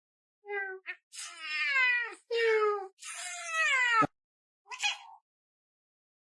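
Domestic cat meowing in a run of about five calls. The middle calls are long, drawn-out meows that fall in pitch, and the first and last are short.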